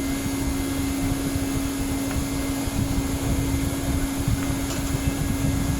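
Hot air banner welding machine's blower running steadily with a constant hum, its heater warming the air up to the 400-degree set temperature.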